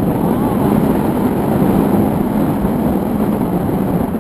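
Wind noise on a camera microphone in flight on a tandem paraglider: a loud, steady, low rumble.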